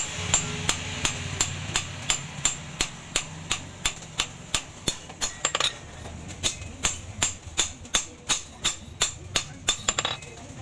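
Hand hammer striking the steel blade of a meat cleaver on a steel post anvil in a steady rhythm of about three blows a second, each a sharp metallic ring, over a low steady hum.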